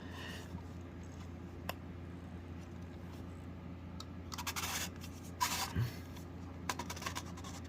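Smoke alarm casing being handled and worked apart by hand: a couple of small clicks, then short scraping and rubbing sounds in the second half, over a faint steady low hum.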